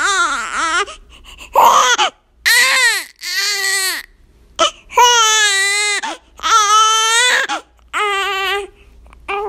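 Infant crying: a string of about eight wailing cries, each half a second to a second long, broken by short catches of breath, the pitch wavering within the longer wails.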